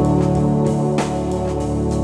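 Background music: held chords with a percussive hit about a second in.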